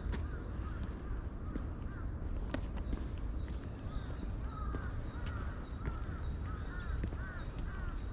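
Several wild birds calling together, with quick runs of short arched calls and a row of thin, high notes repeating over and over.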